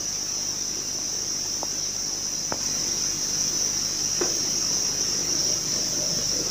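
Crickets chirring steadily in a high, unbroken band, with a few faint clicks about one and a half, two and a half and four seconds in.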